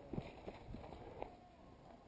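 Soft, irregular footsteps and rustling on dry fallen leaves as a person shifts position, a handful of light thumps in the first second or so, then quieter.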